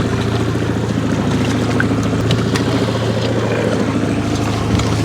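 Fishing boat's motor running steadily at trolling speed, a low even hum.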